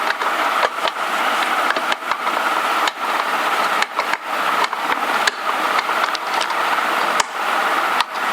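Scattered light clicks and knocks of a screwdriver tightening the screw that holds a plastic handle onto a pressure cooker, over a steady background hiss.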